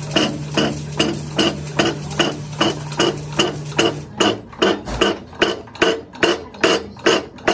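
Steady, evenly spaced sharp knocks, a little over two a second, with a low hum under them that stops about halfway through.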